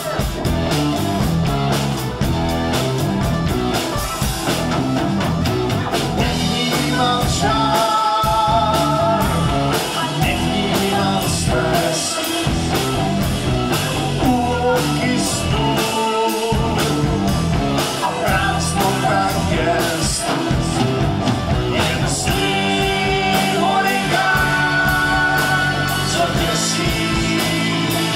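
Rock music with a steady beat, guitar and singing.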